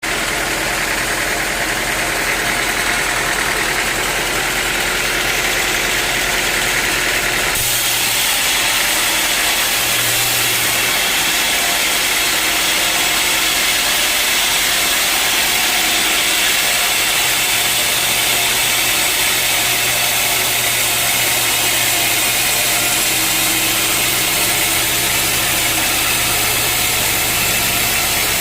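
Sawmill machinery running steadily with a loud continuous drone; the sound changes abruptly about eight seconds in.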